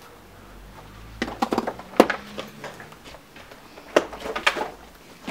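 Footsteps over rubble and debris on a wooden floor: irregular crunching and clattering with a few sharp knocks, the loudest about two seconds in and again about four seconds in.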